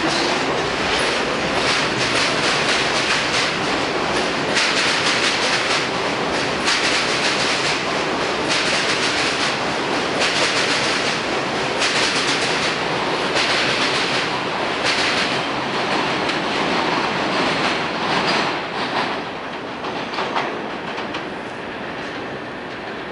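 R62 subway train pulling out of the station and accelerating past, its motor whine rising in pitch at the start. Then comes the clatter of the wheels over the rail joints as the cars go by, fading away near the end as the train leaves.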